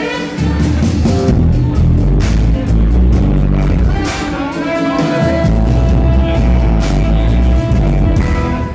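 Live jazz-fusion band playing loud: electric bass, drums and electric guitars, heavy and rough-sounding from being right beside the stage. A long note is held steady from about halfway through until near the end.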